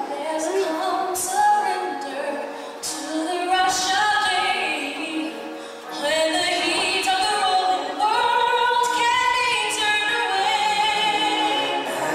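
A woman singing long, gliding held notes into a microphone over live stage-show music, with a few sharp percussion hits.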